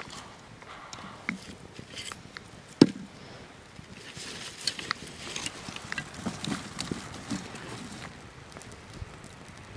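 Wood fire of dry twigs and branches over embers crackling, with scattered sharp snaps and one louder crack about three seconds in.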